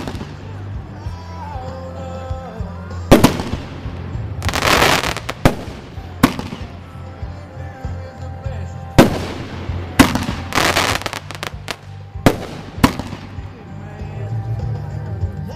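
'One Bad Mother' aerial firework firing a series of loud, sharp bangs at uneven gaps, about eight in fifteen seconds. Some bangs are followed by about a second of hissing as the shells break into stars.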